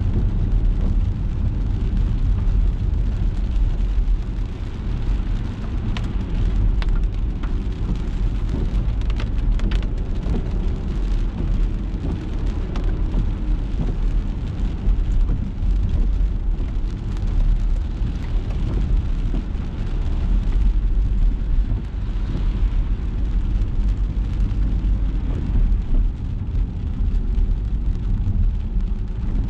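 Rain on a moving car, with the steady low rumble of the car driving on wet road under an even wash of rain noise. A cluster of sharp ticks comes between about six and ten seconds in.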